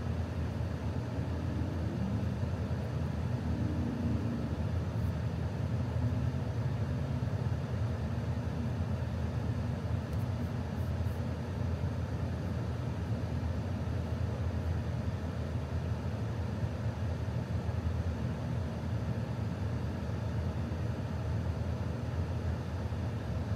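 Steady low rumble heard inside a car's cabin, with a few faint ticks about ten seconds in.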